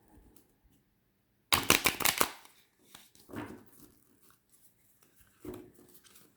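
A semi-gloss oracle card deck being shuffled, with a quick, loud flurry of cards flicking against each other about a second and a half in, then softer sounds of cards being handled as cards are drawn from the deck.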